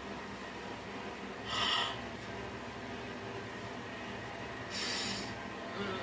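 A person's breaths: two short noisy puffs about three seconds apart, over a steady background hum.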